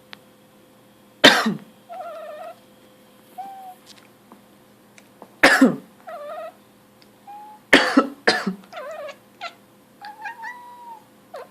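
A person coughs four times, the last two close together, and a domestic cat answers each cough with short meows, some rising and some falling in pitch.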